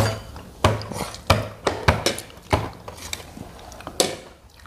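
Metal spoons and forks clinking against bowls and plates while eating: a string of sharp, irregular clinks, roughly one every half second.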